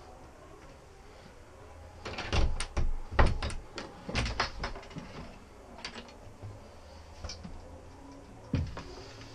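Wooden cabin door to a sailboat's head being opened: a quick run of knocks and latch clicks about two seconds in, and one more knock near the end.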